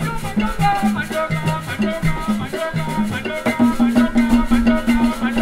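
Live Ben Skin dance music: hand drums and gourd rattles playing a fast, steady rhythm over a repeating figure of low notes. The low figure changes to a faster, evenly pulsing pattern about three and a half seconds in.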